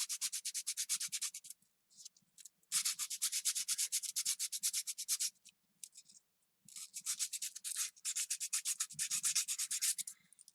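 Sandpaper rubbed by hand over a plastic Stratocaster tone knob in quick back-and-forth strokes, about eight a second, in three runs with short pauses between, roughing up the knob's finish.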